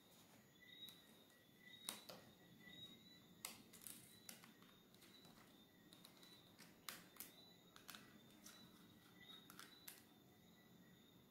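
Near silence with a scattered handful of faint clicks from a small screwdriver undoing the tiny screws inside a Samsung Galaxy Tab A tablet, over a faint steady high whine.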